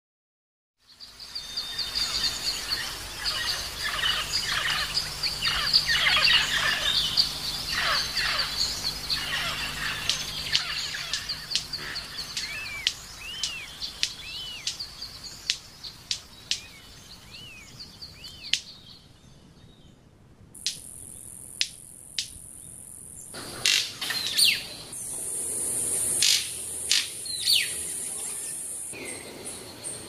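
Tropical forest birds calling: for the first half, a dense chorus of chirps, whistles and arched notes. After a short lull, a steady high insect buzz sets in, with several sharp snaps and a few further calls over it.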